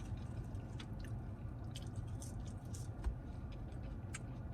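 Close-up chewing of a bacon cheeseburger: wet mouth smacks and clicks over a steady low hum, with a dull thump about three seconds in.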